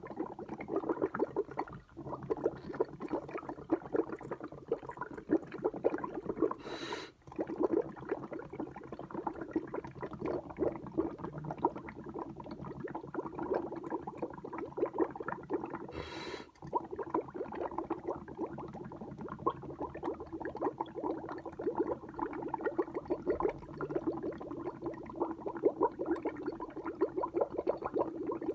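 Milk bubbling and gurgling as air is blown through a standard drinking straw into a glass, a continuous fizzy crackle of popping bubbles. It breaks off briefly about seven and sixteen seconds in for a quick sharp breath in through the nose.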